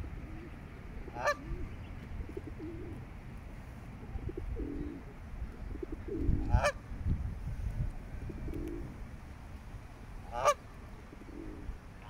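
Greylag goose giving three short, single honks a few seconds apart.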